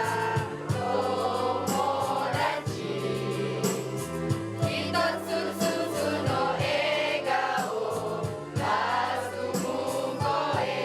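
Several voices singing a song together over musical accompaniment, with held bass notes and regular percussion hits.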